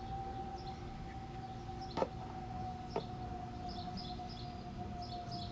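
Short high chirps like small birds, over a steady thin tone that sinks slowly in pitch. Two sharp clicks come about two and three seconds in, the first louder.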